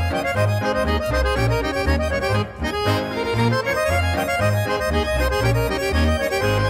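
Swiss folk music: an accordion plays a lively melody over a steady bass line that moves about twice a second, with a brief break about two and a half seconds in.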